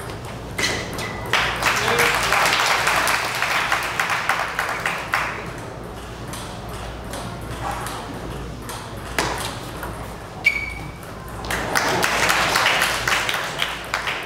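Table tennis ball clicking sharply off bats and table in a short rally, followed by several seconds of crowd clapping and noise. A second exchange of clicks about nine seconds in is followed by another burst of applause near the end.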